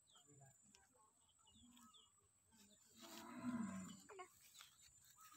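Adult goat giving one low, wavering bleat about three seconds in, lasting about a second and falling slightly in pitch; otherwise near silence.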